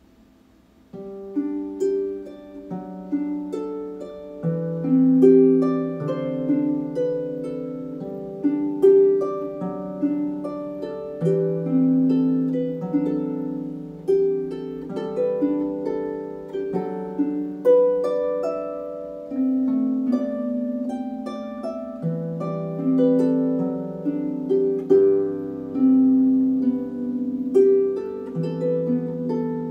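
Dusty Strings FH36S lever harp playing a gentle solo melody. It begins about a second in, with single plucked notes that ring and fade over lower bass notes.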